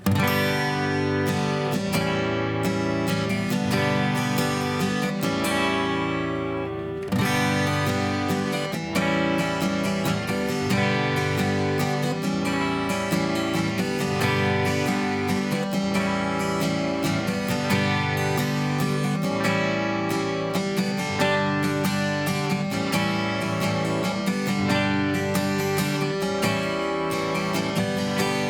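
Background music: strummed acoustic guitar with a steady rhythm, briefly dipping about seven seconds in.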